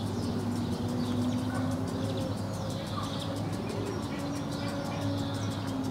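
Outdoor ambience of swallows and house martins twittering in short chirps over a steady low engine drone from distant traffic or aircraft. Through it runs the fast, even ticking of a garden sprinkler.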